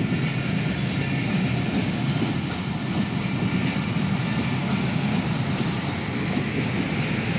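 Bangladesh Railway intercity passenger coaches rolling past on the rails, a steady rumble of wheels on track with light clicking from the wheels over the rail joints.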